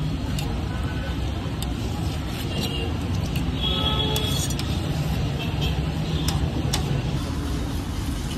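Steady street traffic rumble, with faint voices and a few light clicks.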